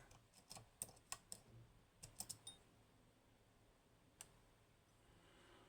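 Faint, small metallic clicks from a lock pick working the pins inside an Agent LS5 lock: a handful in the first two and a half seconds, then one more about four seconds in.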